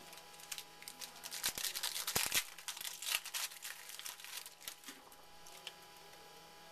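Trading card pack wrapper being torn open and crinkled in the hands: a dense run of crackling and tearing that is loudest about two seconds in and dies away after about five seconds.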